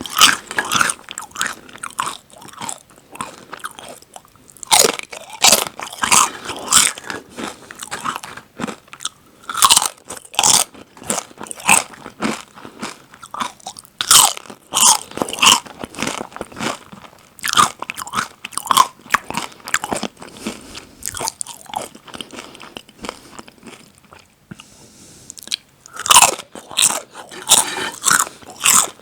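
Crisp potato and corn chips bitten and chewed close to the microphone, crunching loudly in repeated bursts. There is a quieter spell of softer chewing about three quarters of the way through before the crunching starts again.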